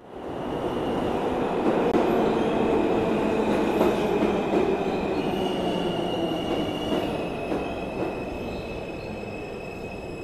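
Subway train running along the rails: a dense rumble with high, thin wheel squeal, starting abruptly and easing off slightly toward the end.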